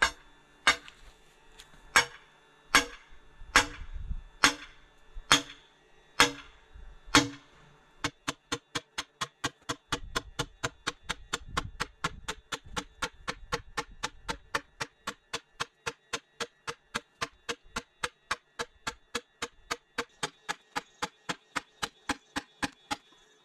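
Hammer blows: nine heavy strikes about a second apart, then from about eight seconds in a long, fast, even run of blows about four a second.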